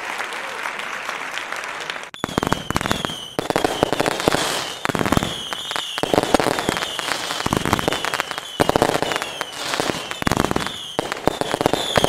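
About two seconds of applause, then firework whistles: many short falling whistles in quick succession over a dense crackling of bangs.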